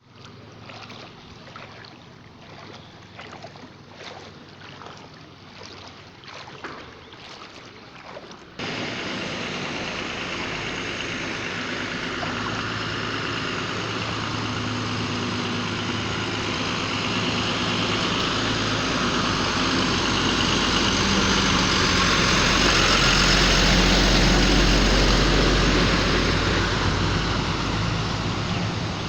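A motor engine running amid a loud, steady rush of water, swelling to its loudest a little past the middle and easing near the end. It is preceded by a quieter stretch of short, sharp ticks that cuts off abruptly about 8 s in.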